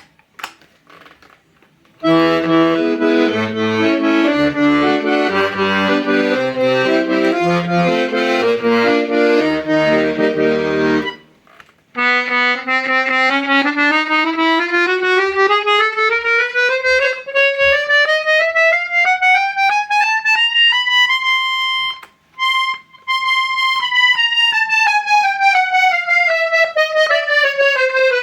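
Hohner Concerto 1 piano accordion played as a sound test. Chords ring over alternating low bass notes, and after a short break a single melody line climbs a scale note by note, holds at the top, and steps back down.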